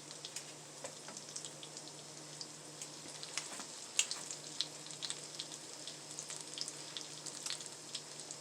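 Stuffed French toast frying in butter in a pan: a steady soft sizzle with scattered sharp pops and crackles, one louder pop about halfway through.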